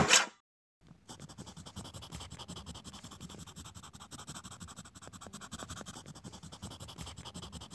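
A brief loud burst of noise, then from about a second in a pen scratching out handwriting in a steady run of quick scratchy strokes.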